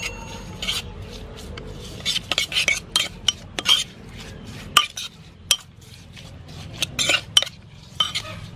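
Metal spoon stirring sliced lemongrass coated in sauce in a ceramic pot, clinking and scraping against the pot's side and bottom in irregular strokes.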